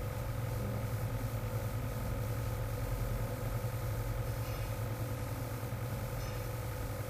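Steady low hum with a few faint steady tones above it, the background noise of a computer recording setup.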